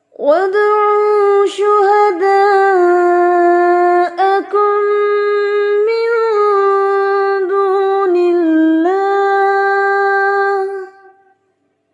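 A high-pitched voice chanting Qur'anic recitation in tajweed style, drawing out one long melodic line for about ten seconds with small steps in pitch and a brief break about four seconds in.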